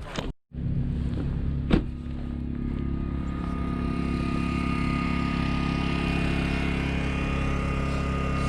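A small portable generator's engine runs steadily, powering tools for cutting off a trailer kingpin lock. There is one sharp knock a little under two seconds in.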